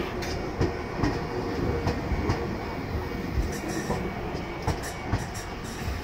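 Keio 1000-series electric train passing close by: a low rumble with irregular clacks and knocks from the wheels over the rail joints, easing slightly as the last car goes by near the end.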